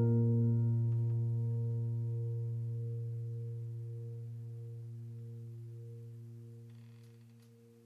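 Background music ending on one low ringing note that slowly fades out over several seconds.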